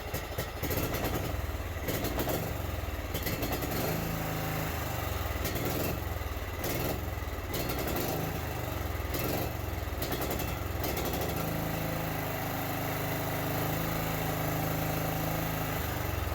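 Old John Deere tractor's engine running just after being started, uneven and surging for about the first ten seconds, then settling into a steady idle.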